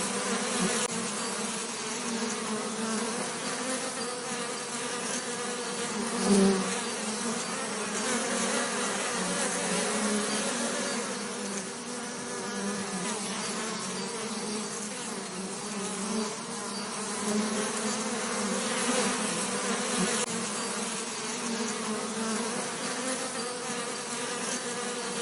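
Bees buzzing steadily in a low, even drone, with a brief louder swell about six seconds in.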